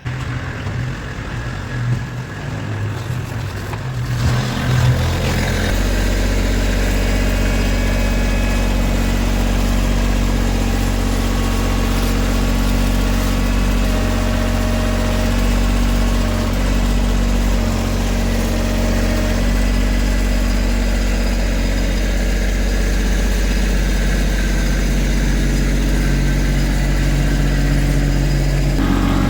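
Kubota tractor's diesel engine starting about five seconds in, then running steadily at idle.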